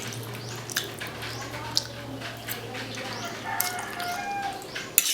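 Close-miked eating: wet mouth clicks and smacks of chewing, with a few brief squeaky slurping sounds, a sharp click near the end, and a steady low hum.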